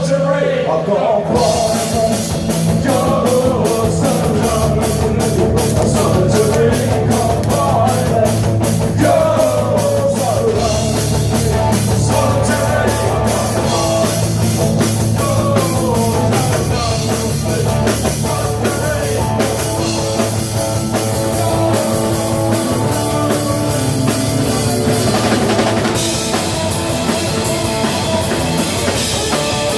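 Punk rock band playing live: drum kit, electric guitars and bass driving along at full volume. The drums drop out for about a second at the start, then come back in.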